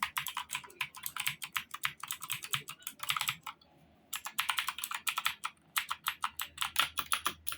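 Fast typing on an HP GK100F mechanical keyboard: a rapid run of sharp key clicks that stops briefly about halfway through, then resumes.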